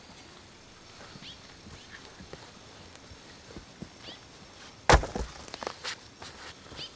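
A wooden ladder being handled against a charcoal kiln: one sharp wooden knock about five seconds in, followed by a few lighter knocks, with faint footsteps and handling noises before it.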